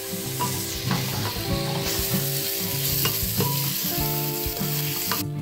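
Soya chunks and tomato-onion masala sizzling as they fry in a pressure-cooker pot, stirred with a spoon that clicks and scrapes against the pot. The sizzle cuts off suddenly shortly before the end.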